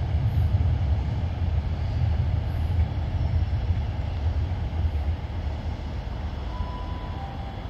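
Diesel multiple unit pulling away from the platform, its engines giving a steady low drone that slowly fades as it draws off.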